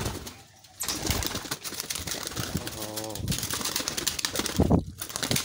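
Domestic pigeons cooing in a loft, one short call standing out about three seconds in, over a busy rustling and clicking.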